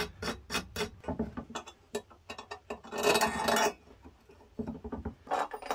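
Small metal parts clinking and clicking as a steel hinge, screws and a bracket are handled and fitted by hand, with a brief scrape about three seconds in.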